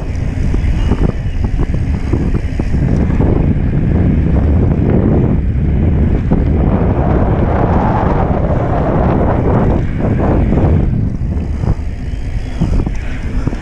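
Wind buffeting the microphone and mountain bike tyres rumbling and rattling over a dry dirt trail on a fast descent. The noise is loud and continuous, rising and falling with the terrain.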